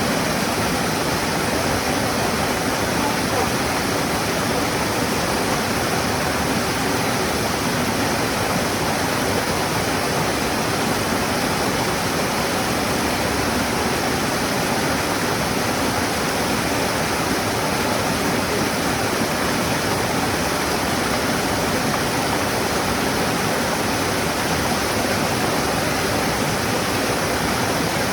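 Waterfall rushing, a steady dense roar of falling water with no change in level.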